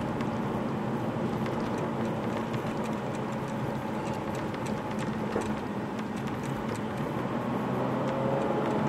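Nissan Fairlady Z (Z34) 3.7-litre V6 running steadily at cruising speed, with tyre and road noise, heard from inside the cabin.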